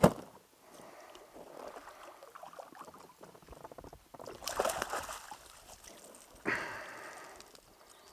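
A hooked chub splashing at the water's surface beside an inflatable packraft as it is played in and netted, with a sharp knock at the start, a burst of splashing about four and a half seconds in, and another splash about six and a half seconds in that fades away.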